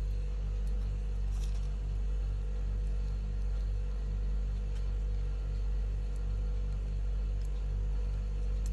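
Steady low mechanical hum with a slow, even pulsing, and a few faint light clicks over it.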